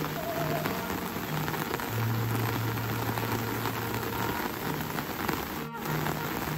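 Steady rain falling, an even dense hiss of drops on surfaces, with a low hum that comes and goes underneath.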